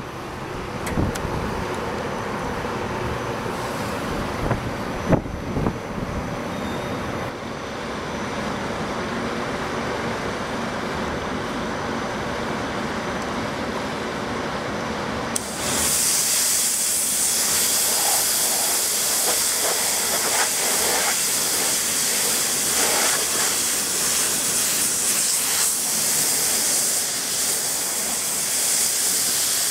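A pressure-washer water jet cuts in about halfway through with a sudden loud hiss of spray that then holds steady. Before it there is a low rumble with a few knocks.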